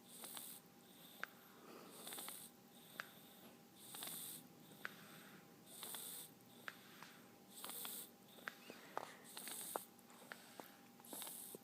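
A sleeper snoring softly: airy, hissing snore breaths about every two seconds, six or seven in all, with short sharp clicks between the breaths.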